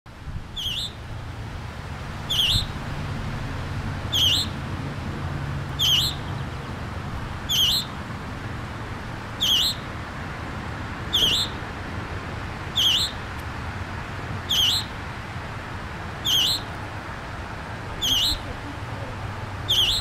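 Fledgling scarlet tanager calling over and over, a short, sharp call that drops steeply in pitch, about once every second and a half to two seconds, over a steady low background rumble.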